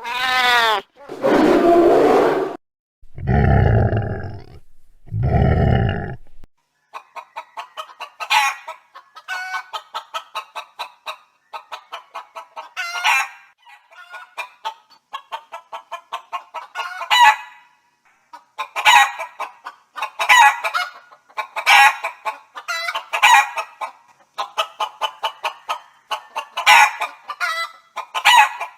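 Chickens calling. A rooster crows at the start, and two heavier, lower calls follow. From there on, hens cluck in rapid runs, with a louder squawking call every second or two.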